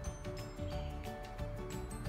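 Background music with a steady beat under held melody notes.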